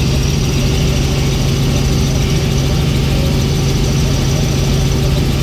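Helicopter cabin noise: the engine and rotor give a steady low hum with a faint high whine above it, unchanging in level, heard from inside the cabin.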